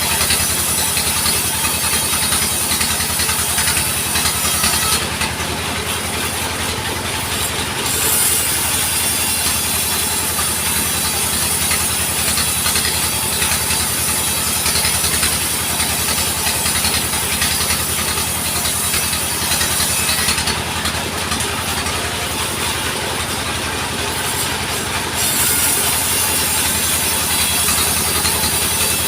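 Engine of a band sawmill running steadily with an even, pulsing beat, with some sawing noise over it. Twice, about five seconds in and again about twenty seconds in, the high hiss drops away for a few seconds.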